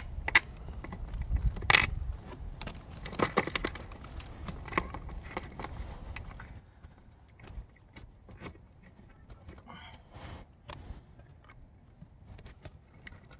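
Small metal clicks, clinks and scrapes of bolts and a handlebar clamp being handled and fitted at a small dirt bike's fork top clamp, over a low rumble. After about six seconds the rumble stops and the clicks grow sparser.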